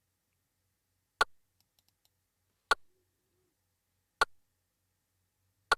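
Four short, sharp sampled snare drum hits from a Maschine drum kit, playing back as a recorded loop and evenly spaced about a second and a half apart.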